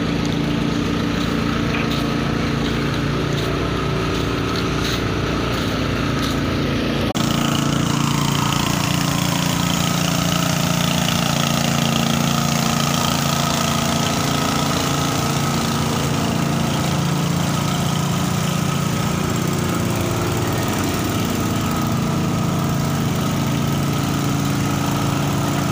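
An engine running steadily at an even idle during fresh-water pumping from a tanker truck into a ship. Its tone changes abruptly about seven seconds in, then carries on just as steadily.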